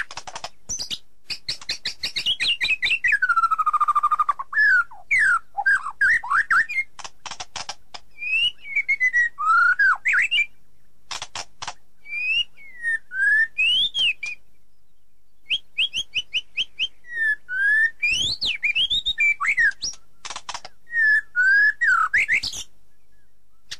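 Songbird singing: quick trains of clicks and chirps mixed with whistled notes that glide up and down, in phrases broken by short pauses.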